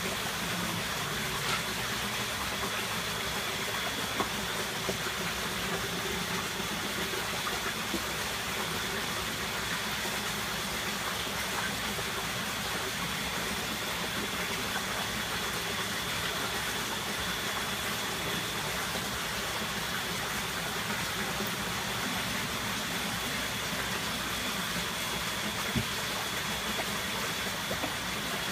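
Steady rush of running water, even throughout, with a faint high whine running through it and a few small clicks.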